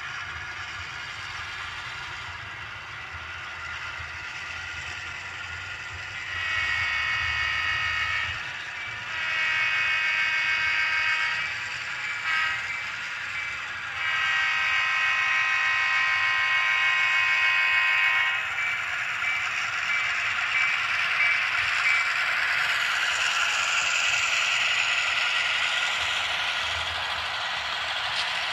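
HO-scale model diesel locomotive's SoundTraxx Tsunami2 sound decoder sounding its horn in the grade-crossing pattern: long, long, short, long. After the last blast comes a steady rushing, clattering noise as the model locomotive and cars pass close by.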